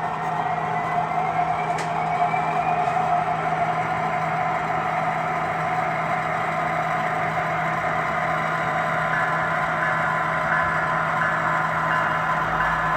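HO scale model locomotive sound decoders playing through small onboard speakers: several locomotive air horns sounding together in a steady chord over the hum of the diesel engine sound. A higher tone pulsing about twice a second joins about nine seconds in.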